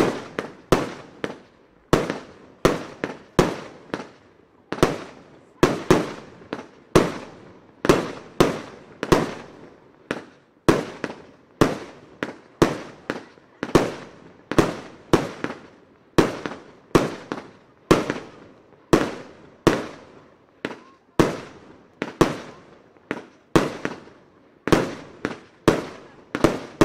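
J-Fireworks Construction compound firework cake firing a steady string of shots, about one and a half a second. Each is a sharp bang of a shell bursting in the air, followed by a fading tail.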